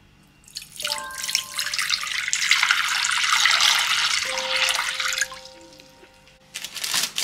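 A stream of water running into a glass bowl, filling it. The flow starts about half a second in and stops about five seconds in, followed by a few sharp drips or splashes near the end.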